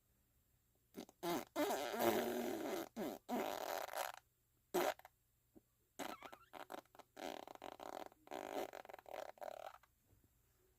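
Fart sounds, each a noisy, breaking blast. The first starts about a second in and lasts about three seconds, a short one comes near the middle, and a longer, choppier run of about four seconds follows.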